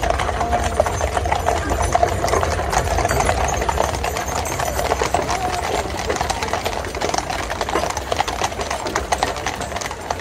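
Horses' hooves clip-clopping on the road as horse teams pull spoke-wheeled field guns past, with a steady low rumble of the rolling gun-carriage wheels and a busy run of sharp knocks and clinks. Crowd voices murmur underneath.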